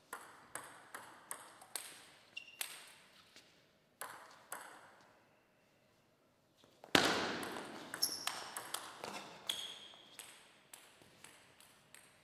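Table tennis ball clicking repeatedly at first, then a rally of sharp pings of the ball off rubber bats and the table. There is a loud thump with a long echo about seven seconds in, and brief squeaks of shoes on the hall floor.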